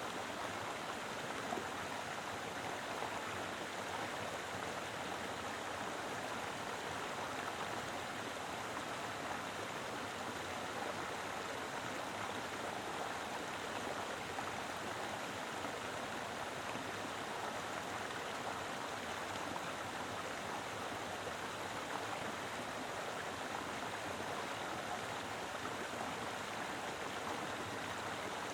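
Mountain river flowing fast over rocks: a steady, even rush of water.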